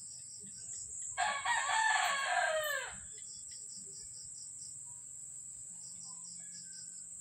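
A rooster crows once, about a second in, a call lasting under two seconds that drops in pitch at the end.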